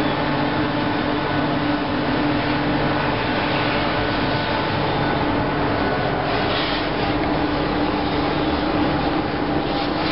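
Steady rumbling noise of a vehicle in motion, with a low hum held throughout.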